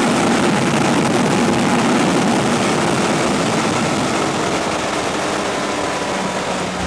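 Heavy wind rush at high speed on a Suzuki Hayabusa, with its inline-four engine faintly underneath. The rush eases off slightly as the throttle is rolled back and the bike slows.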